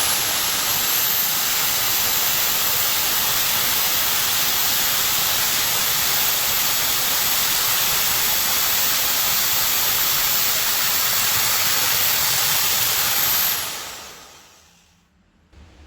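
A machine spinning wood at high speed: a steady, even rushing hiss with a thin high whine above it. It fades away about two seconds before the end.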